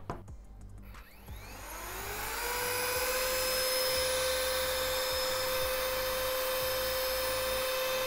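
Old-model OPOLAR cordless mini blower/vacuum switched on in blowing mode: its small electric motor spins up with a rising whine about a second in, then runs at a steady high pitch.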